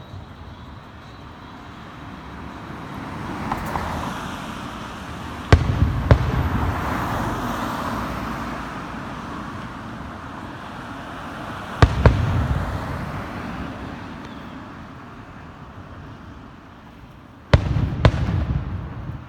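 Aerial firework shells bursting: three pairs of sharp bangs about six seconds apart, each followed by a low rumble. Between them a swelling crackle and hiss rises and fades.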